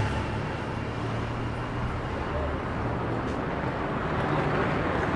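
City street ambience: a steady rumble of road traffic with faint voices of passers-by.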